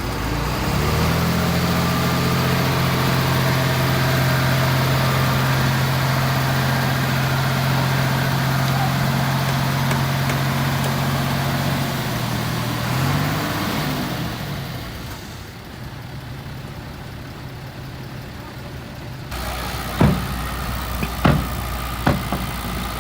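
A heavy diesel engine of earthmoving equipment runs at a steady pitch, then wavers up and down in pitch a little past halfway and drops in level. After an abrupt change near the end, three sharp knocks stand out as the loudest sounds.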